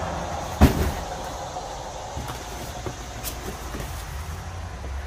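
Boxes of fireworks being handled: one sharp knock about half a second in, then a few faint clicks, over a steady low rumble.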